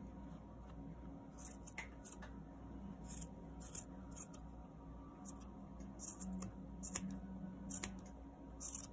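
Scissors snipping through yarn, trimming the strands of a yarn pom-pom: short, sharp snips in an irregular run, roughly one a second.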